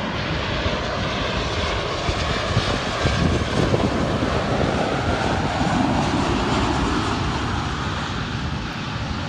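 Embraer E-Jet regional airliner's turbofan engines at approach power as it passes low and lands: a loud, steady jet roar with a broad rushing hiss that swells slightly in the middle of its pass.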